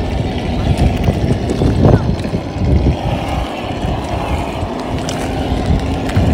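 Simulated V8 engine sound from the sound units of 1/10-scale Traxxas TRX-4 RC crawlers, a low, uneven burble as the trucks crawl over river stones.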